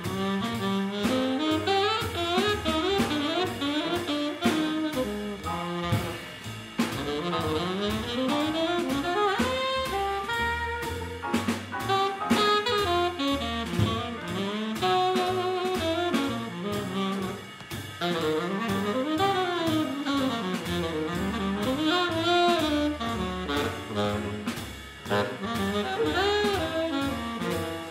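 Swing-style jazz quartet playing: an alto saxophone carries a melodic line with bent, sliding notes over double bass, piano and a drum kit keeping time on cymbals.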